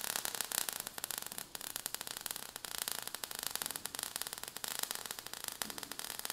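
Faint crackling static: a dense run of tiny clicks over a hiss.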